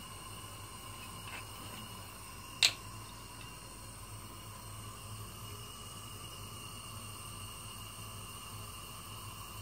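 Quiet kitchen room tone with a steady low hum. One sharp click comes about two and a half seconds in, with a fainter click a little before it.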